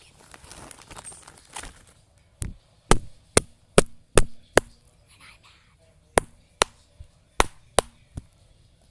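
Soft crinkling for the first second and a half, then twelve sharp knocks in two runs of six, about two and a half a second, with a short pause between the runs.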